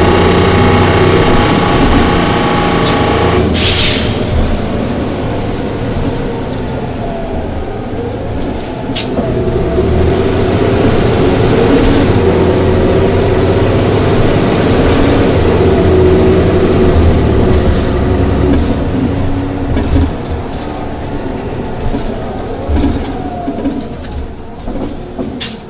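A 2011 Orion VII city bus under way on its Cummins Westport ISL G natural-gas engine and Allison B400R automatic transmission. The engine note changes sharply a few seconds in, then runs steadily, and it grows quieter near the end as the bus slows.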